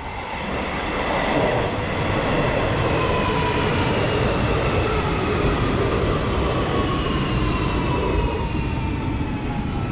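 Hanshin 5700 series electric train running in alongside the platform. The train gets louder over the first second or so, then holds a steady rumble of wheels on rails. Several whining motor tones fall slowly in pitch as the train slows.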